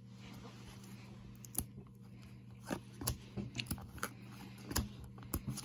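A stack of football trading cards being handled and flipped through, giving scattered soft clicks and taps. A steady low hum sits underneath.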